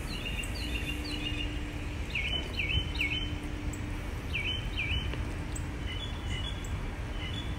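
Small birds chirping: short dipping calls that come in quick groups of two or three, over a steady low rumble.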